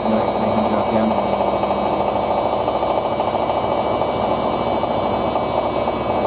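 Hoover DYN9144D3X washing machine on its final spin, the drum spinning fast at a 1000 rpm setting and making a loud, steady rushing noise.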